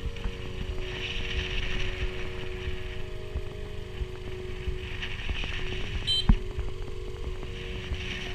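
Motor scooter riding along at steady speed: engine hum under rough wind buffeting on the microphone, with one sharp knock about six seconds in.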